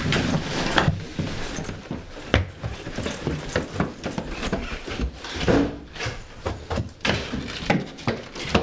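Scattered soft knocks and clicks at irregular intervals, with no music played.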